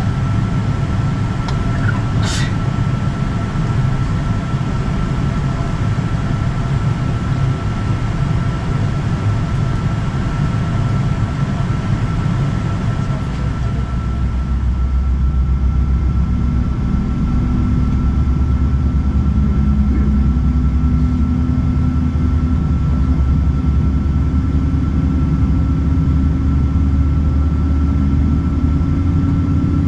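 Boeing 777-200ER engine and airframe rumble heard from inside the cabin, with a steady faint whine and a single click about two seconds in. About halfway through, the low rumble grows stronger and a low hum slowly rises in pitch as the engines come up in power.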